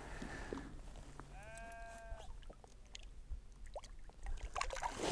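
A sheep bleats once, a single drawn-out call of about a second, starting just over a second in.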